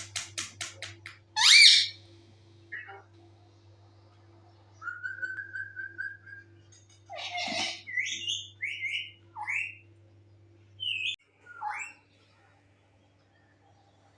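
Parrot whistling and squawking: a rapid run of clicks at the start, a loud rising whistle about a second and a half in, a long level whistle around five seconds, a harsh squawk near seven seconds, then a string of short rising whistles. A faint steady hum lies underneath.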